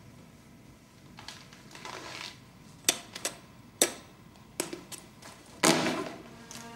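Cloth rustling as a wool coat is handled, then about half a dozen sharp, irregular clicks, then a louder rustle of heavy fabric near the end. This is a coat being searched and its metal buttons cut off.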